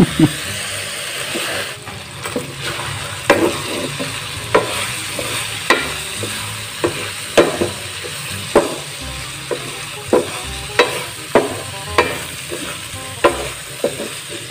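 Metal spatula stirring and scraping abaleng around a metal wok, a sharp scrape roughly once a second, over a steady frying sizzle as the abaleng are sautéed.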